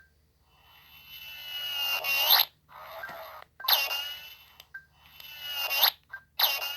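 A run of about five vintage Warner Bros. gunfight sound effects: short, high whines with a sharp bend in pitch at their ends, of the bullet-ricochet kind. Some swell up and cut off, and others strike suddenly and fade.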